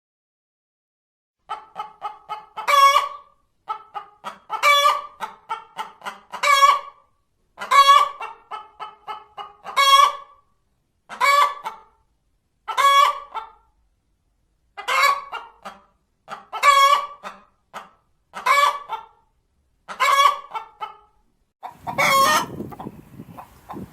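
Hen cackling: runs of quick clucks, each building to a loud drawn-out squawk, repeating about every two seconds. This is the cackle hens give after laying an egg.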